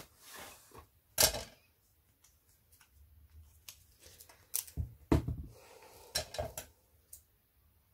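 A sheet of double-sided adhesive tape being handled and folded, giving a string of short crinkles and crackles, the loudest about a second in and again about five seconds in.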